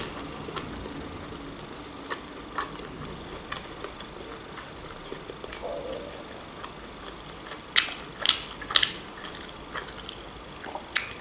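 A person chewing microwaved breaded chicken wings, with wet mouth clicks and the breading being pulled apart by hand. A few louder sharp clicks come together about eight seconds in.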